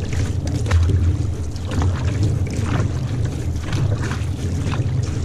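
Outrigger canoe paddles dipping and pulling through the water about once a second, with water rushing along the hull and a low steady rumble of wind on the microphone.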